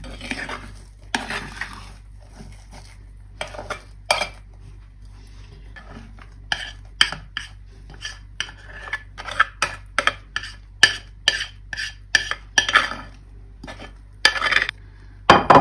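Metal spoon scraping stiff cake batter out of a glass mixing bowl into a round glass baking dish: a run of short scrapes and clinks against the glass, about two a second through the middle, with longer scrapes near the start and the end.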